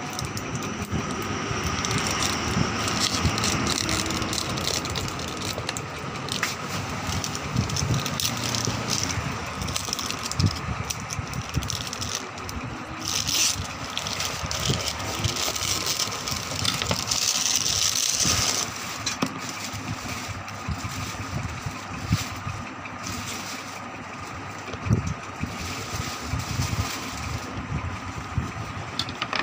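Smartwatch packaging being handled and opened: irregular rustling and scraping of cardboard and plastic over a steady background hum, with a longer burst of crinkling about two thirds of the way in.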